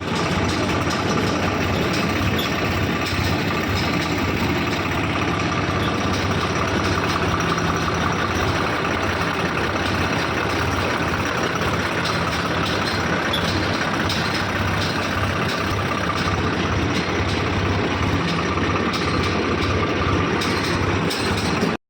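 Tractor-driven wheat thresher running steadily: a loud engine drone under a dense rushing noise from the threshing drum, cutting off suddenly at the end.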